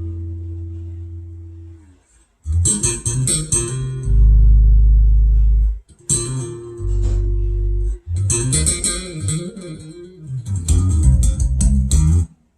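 Guitar-led test music with a deep, held bass line, played back through a Yamaha A-S501 amplifier and Mission LX-2 speakers fed by a Topping D30 USB DAC. The music drops out briefly about two seconds in and stops again at the end.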